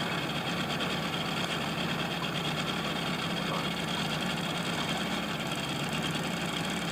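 Boat motor running steadily at low speed, an even low hum with no change in pitch.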